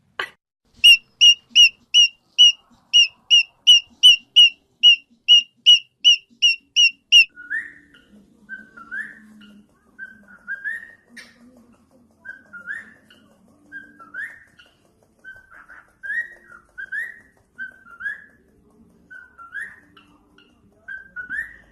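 Cockatiel whistling a fast run of short notes all at the same pitch, about two and a half a second for six seconds, then switching to softer, upward-sweeping chirps about once a second.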